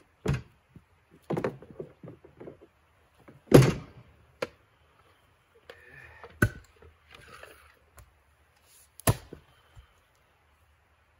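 Split firewood pieces thrown into a plastic dump cart, then axes striking rounds being split: a series of sharp wooden knocks and thunks with quieter clatter between them, the loudest a little over a third of the way in.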